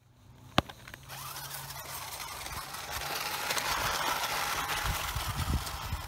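A sharp click about half a second in, then a small electric RC rock-crawler truck driving: a steady whirring hiss from its motor, gears and tyres over dirt and paving, swelling in the middle, with a few low bumps near the end.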